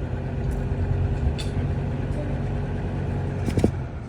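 Lasko 3733 20-inch box fan running on its low speed with a steady motor hum. Near the end a click, likely the rotary speed switch, comes just before the hum drops away.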